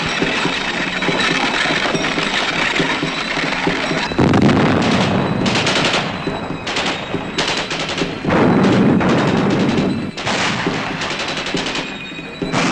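Rapid machine-gun and rifle fire in long bursts, a dense crackle of shots that is loudest about four seconds in and again about eight seconds in, then thins out near the end.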